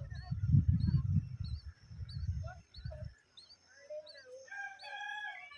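Birds chirping: short, high chirps repeated about twice a second, with a longer held call of several tones near the end. A low rumble runs under the first three seconds and then stops.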